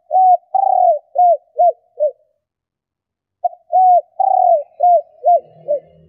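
Female spotted dove cooing: two phrases about a second apart. Each phrase is a short note, a coo, a longer drawn note, then three shorter coos.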